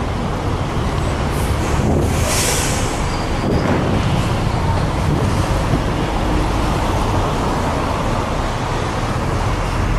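Steady rumble of road traffic, with a short hiss about two seconds in.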